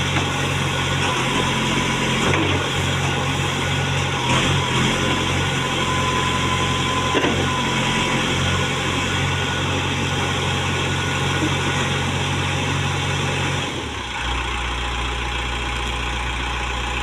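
Case 770 NXe backhoe loader's diesel engine running steadily, then dropping to a lower, deeper note about 14 seconds in as the revs come down.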